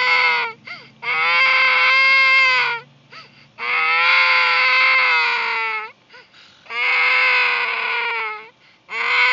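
A young child crying in long, high-pitched wails of about two seconds each, with a short gasp for breath between them; four wails follow one another.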